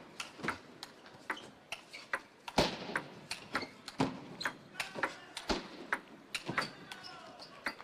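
Table tennis rally: the celluloid ball clicking off the rackets and the table in a quick back-and-forth, about two to three sharp hits a second.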